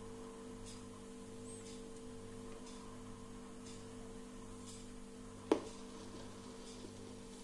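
Portable suitcase turntable with a steady hum as the record spins, and one sharp thump a little over five seconds in as the stylus is lowered onto the vinyl.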